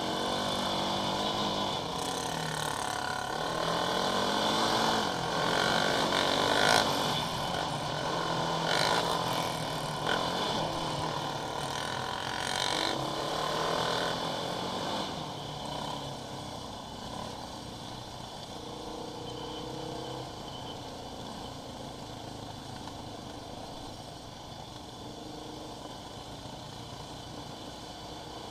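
Quad bike engine revving up and down as it is ridden over a dirt track, with wind and gravel noise on the microphone. About halfway through it drops to a quieter, steadier run.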